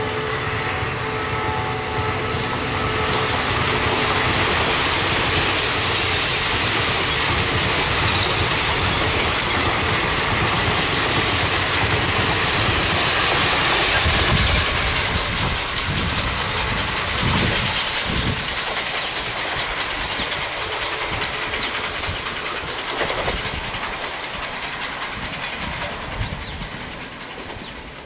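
An express train's passenger coaches rush past at speed, wheels clattering over the rail joints, and the sound fades as the train draws away near the end. The horn of the WDP-4D diesel locomotive is still sounding at the start and stops within the first few seconds.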